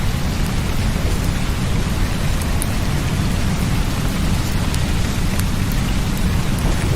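Steady rain with a deep, even low rumble beneath it and a few sharp drop ticks.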